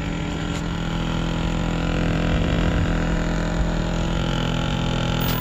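A compressor running steadily with a constant mechanical hum and rumble, the noise that is to be repaired.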